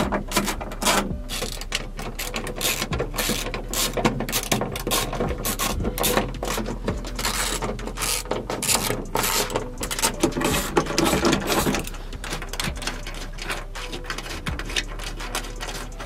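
Hand socket ratchet clicking in quick runs as the sunroof frame's mounting bolts are backed out.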